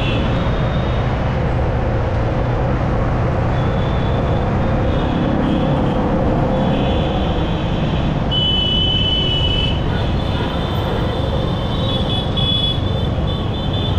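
Riding a Yamaha R15M motorcycle in city traffic: the single-cylinder engine runs under a steady rush of wind and road noise. Faint high tones come and go, clearest about two-thirds of the way through.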